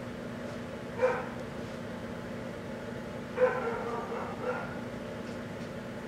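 Microwave oven running with a steady hum while heating a sealed bottle of Listerine mouthwash. Short, high-pitched calls break in about a second in, then come as a cluster of several from about three and a half to four and a half seconds in.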